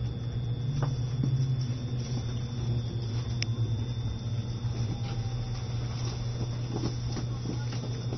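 Steady low hum inside the car of an E653 electric train standing at its terminus, with a few faint clicks and knocks.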